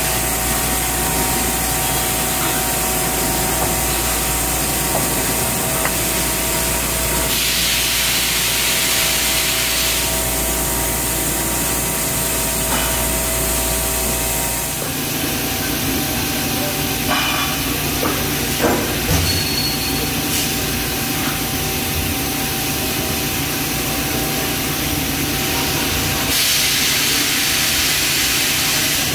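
Samsung 6TL CNC lathe running: a steady machine hum under a continuous hiss. The low hum changes about halfway through, followed by a few clicks and knocks. Two stretches of louder, sharper hiss come about a quarter of the way in and again near the end.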